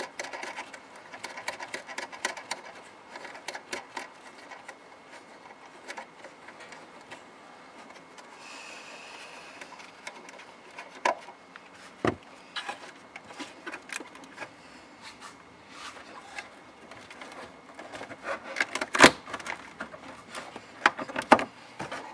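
Scattered plastic clicks, knocks and rustling as gloved hands work the back of a BMW E36 M3 tail light, prying at its electrical connectors and housing. One sharp knock about 19 seconds in is the loudest.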